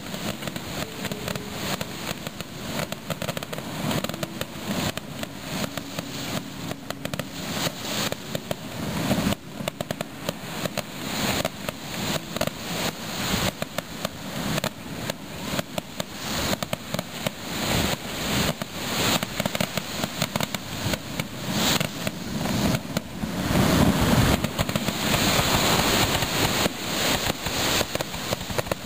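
Fireworks going off in rapid succession: a dense, continuous run of bangs and crackling, loudest for a couple of seconds about three-quarters of the way through.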